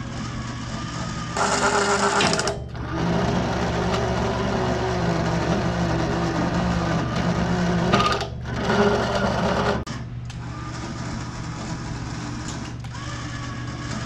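Blade roller guide adjustment motor on a 1998 Wood-Mizer LT40 sawmill, running the guide arm in and out. It sounds rough, a sign that the long-idle guide arm needs lubricating and cleaning. The running is louder for a moment about two seconds in and again near the nine-second mark, with brief breaks between.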